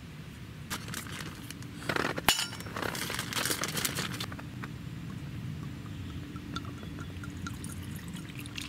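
Glass clinking, with one sharp clink about two seconds in, and liquid being poured into a glass for about two seconds, while an Early Times bourbon and apple juice mix is being made. Quieter small clinks and handling follow.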